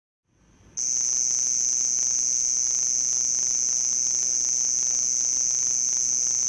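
Male house cricket (Acheta domesticus) stridulating, rubbing the toothed file under its right forewing across the left forewing: a loud, steady, high-pitched song that starts abruptly just under a second in.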